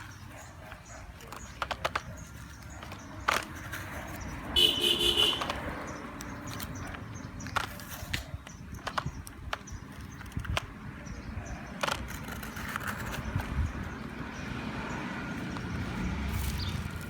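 A horn toots once, a short steady tone of under a second, about a third of the way in, over a low rumble and scattered sharp clicks.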